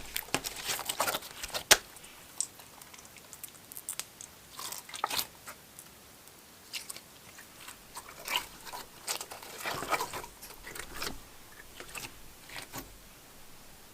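Slime being squeezed and worked by hand, giving irregular sticky crackles and small pops, with one sharp snap about two seconds in.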